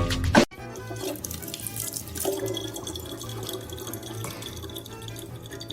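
Music that cuts off abruptly about half a second in, followed by a steady rush of running water like a tap running into a sink.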